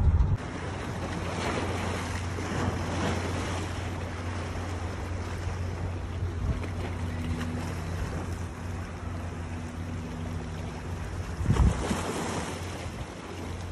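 Bay water sloshing and washing, with wind on the microphone and a steady low hum beneath it. A louder rush of water and wind comes near the end.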